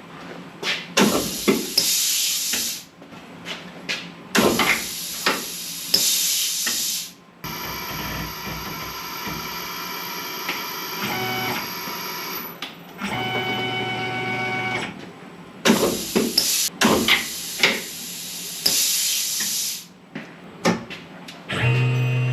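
Workshop machine-tool noise: several bursts of loud hissing cutting noise mixed with sharp knocks, and in the middle a steady motor whine with several held tones, like a machine's motors driving it.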